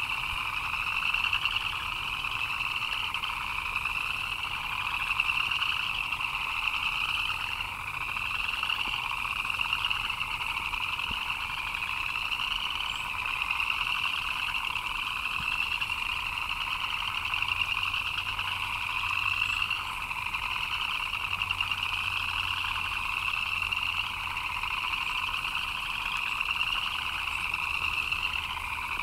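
A chorus of frogs chirping, many calls overlapping into a continuous high trill that swells in repeating waves every second or two.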